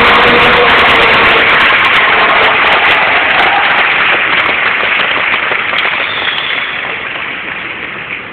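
Audience applauding, the clapping loud at first and dying away gradually.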